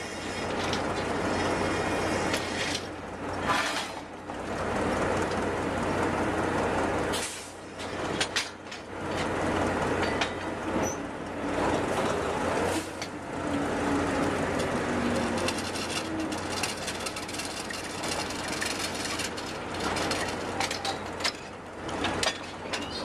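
Drilling rig floor machinery running with a steady low hum and dense din while the crew trips drill pipe, with occasional metal clanks from the pipe and tongs.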